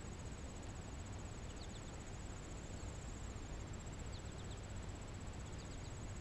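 Crickets trilling: a faint, steady, high-pitched trill, with a few brief high chirps in small groups scattered through.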